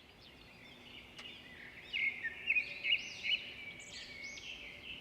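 Several small birds chirping and calling together in quick, overlapping rising and falling chirps, loudest between about two and three and a half seconds in.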